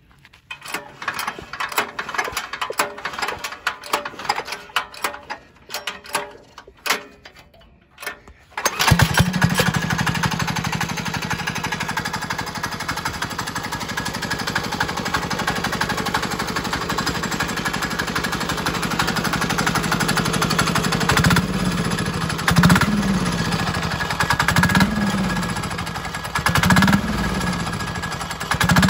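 Chinese 196cc single-cylinder diesel engine being started: about eight seconds of irregular clattering, then it catches suddenly and runs at a steady idle. In the last several seconds the engine speed rises and falls briefly about every two seconds.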